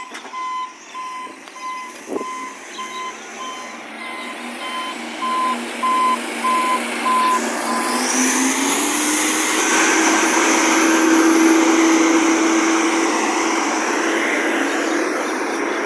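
Recycling truck's reversing beeper sounding steadily, about one and a half beeps a second, over its diesel engine. About eight seconds in the beeping stops and the engine revs up and holds a loud, higher note; the truck has an exhaust leak.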